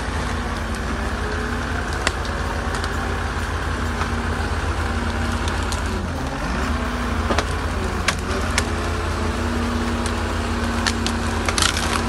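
Ponsse Ergo eight-wheel forest harvester's Mercedes-Benz six-cylinder diesel working under load as it drives through deep mud, a steady drone whose note dips briefly about halfway and picks up again. Branches snap with sharp cracks under the tyres several times, most near the end.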